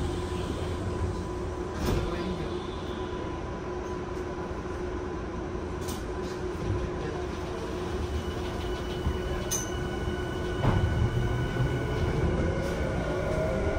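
Running sound inside a Tokyu 5050 series car with Hitachi IGBT-VVVF inverter control: steady rail and wheel noise with a steady whine and a few sharp clicks, as the train slows into a station. A louder low rumble comes in about two-thirds of the way through, and a set of rising tones starts near the end.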